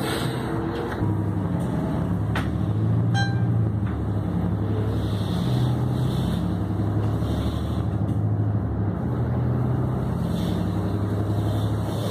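Inside a city transit bus on the move: the engine and drivetrain run with a low drone that swells and eases, over steady tyre noise on the wet road. Two short clicks come a couple of seconds in.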